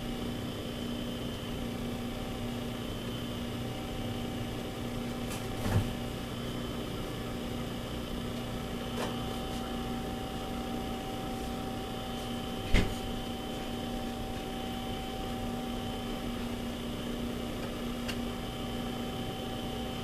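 Steady electrical hum with a few constant tones, broken by a brief knock about six seconds in and a sharper, louder knock about thirteen seconds in.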